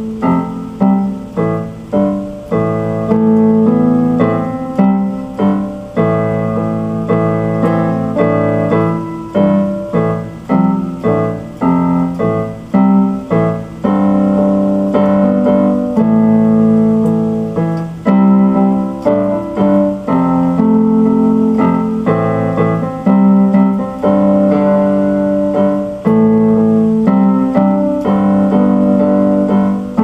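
Electric keyboard played in a piano voice: a slow instrumental piece of chords and melody notes, struck roughly once a second and each dying away.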